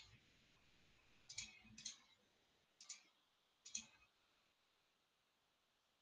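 Near silence broken by about five faint, sharp clicks from someone working at a computer in the first four seconds, then quiet room tone.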